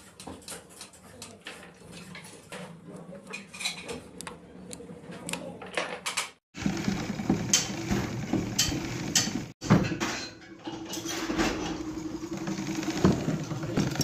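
Small metal parts of a sewing machine clicking and clinking as they are fitted and adjusted by hand. After a break about halfway through, the clatter gets louder, with a steady hum under it.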